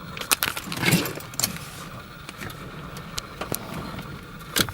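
Scattered clicks, knocks and rustling from handling inside a vehicle, over a low steady background.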